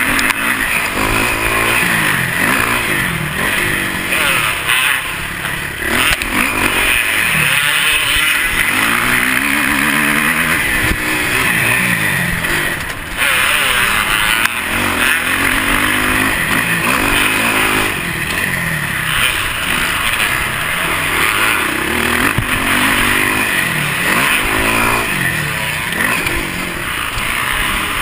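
Dirt bike engine revving up and dropping off again and again as the rider accelerates out of corners and shuts off for the next, heard close from the bike itself.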